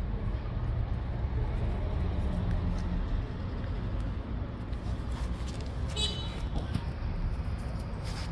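Steady low rumble of street traffic, with a brief high-pitched sound about six seconds in.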